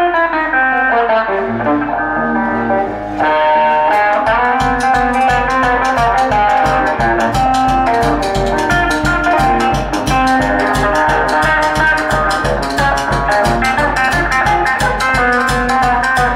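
Electric guitar playing a blues passage with bending, sliding notes, alone at first; a drum kit comes in with a steady beat about four seconds in and the two play on together.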